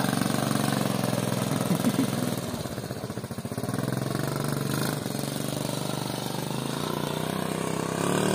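Small 50 cc step-through motorcycle engine running as the bike pulls away and rides off, its sound dipping briefly about three seconds in and then running on steadily.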